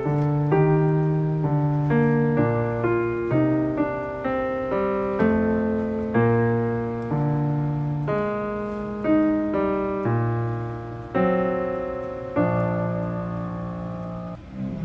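Background music: a piano playing a slow run of chords and melody notes, each struck note fading away.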